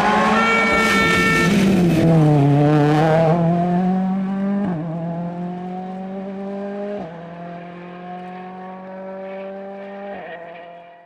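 Ford Fiesta RRC rally car's turbocharged 1.6-litre four-cylinder engine pulling hard and climbing in pitch through the gears. Quick upshifts come about 5, 7 and 10 seconds in, and a high whine sits over the engine in the first couple of seconds. The sound fades steadily as the car moves off.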